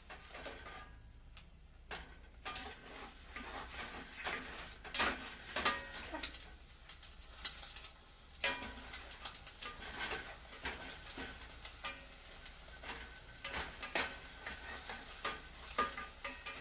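Kitchen activity: an irregular run of clinks, knocks and scrapes of utensils against pots and dishes, sparse for the first couple of seconds and then busy.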